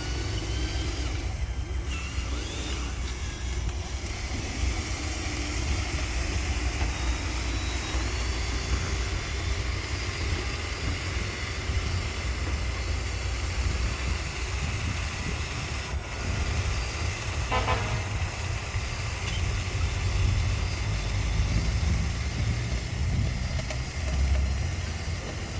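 Radio-controlled toy trucks running: a faint whine from their motors over a steady low rumble, with a short beep-like tone about 17 seconds in.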